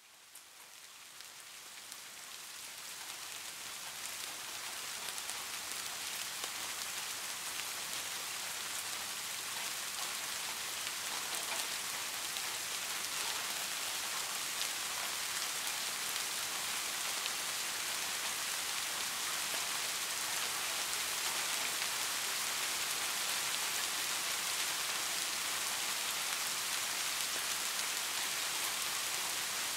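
Heavy rain falling steadily, a dense even hiss that fades in over the first few seconds.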